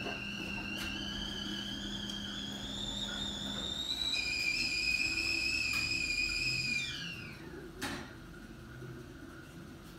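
Stovetop kettle whistling at the boil: the whistle rises slowly in pitch, jumps to a steadier lower note about four seconds in, then slides down and dies out about seven seconds in, followed by a short click.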